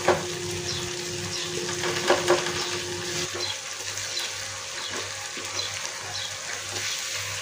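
Tomato-onion masala sizzling in a non-stick kadai while a wooden spatula stirs and mashes it, with scraping and scattered light taps of the spatula against the pan. A faint steady hum stops about three seconds in.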